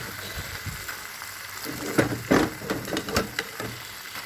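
Chicken and potatoes sizzling as they fry in a pot, with a few sharp clicks of a utensil against the pot about halfway through.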